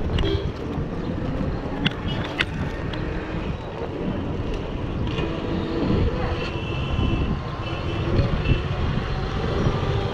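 Wind rumbling on the microphone of a moving bicycle, with street traffic around it. There are two sharp clicks about two seconds in.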